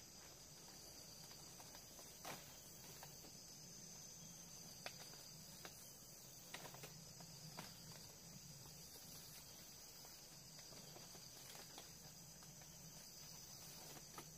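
Faint, steady high-pitched drone of a forest insect chorus, crickets or cicadas, with a few scattered faint knocks.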